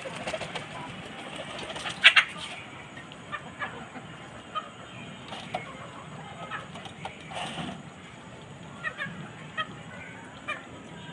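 Hens clucking softly while a flock of chickens and pigeons feed, with scattered short ticks throughout. Two loud sharp clicks come about two seconds in.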